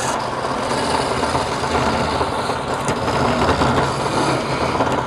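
Wood lathe running, with a steady rough scraping noise over the low hum of its motor.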